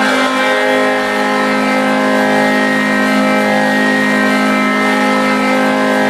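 Charlotte Checkers' 2021–22 arena goal horn sounding one long, steady multi-toned blast that starts sharply.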